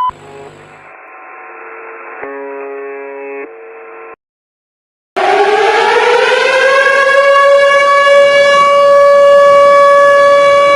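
Quiet stepped electronic tones changing pitch a couple of times, a second of silence, then an emergency-alert siren winding up from a low pitch to a steady, loud wail that holds to the end.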